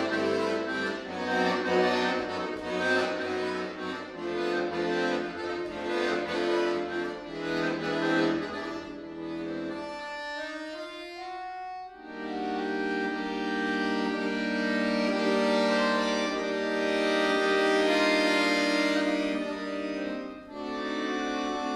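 Solo chromatic button accordion (bayan) playing a fast, rhythmic passage over a bass line. About ten seconds in it thins to a quiet rising run, then breaks into loud held chords, with a fresh chord struck near the end.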